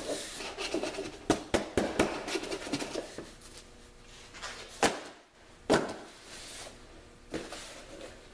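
Styrofoam packing and a cardboard box being handled and pulled apart: rubbing and scraping with about seven sharp knocks, several close together in the second second.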